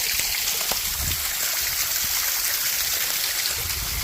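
Small waterfall pouring into a rock pool: a steady, even rush of falling and splashing water, with brief low rumbles about a second in and near the end.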